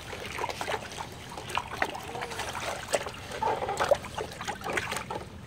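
A dog pawing and splashing in shallow water in a plastic kiddie pool: a run of irregular small splashes and sloshes.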